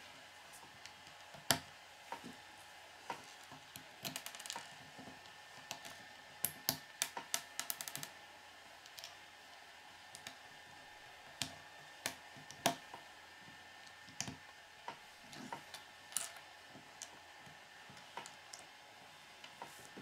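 Small plastic Lego pieces clicking and snapping as fingers press them together and handle them on a wooden tabletop: irregular sharp clicks, with quick runs of them around four seconds in and again between about six and eight seconds in.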